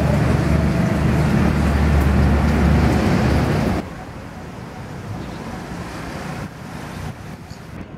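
Steady low rumbling outdoor background noise, loudest in the bass. A little under four seconds in it drops abruptly to a quieter, thinner background.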